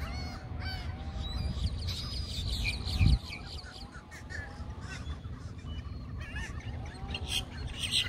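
A flock of water birds in the shallows calling over and over, many short arching calls overlapping. Wind rumbles on the microphone, with one sharp bump about three seconds in.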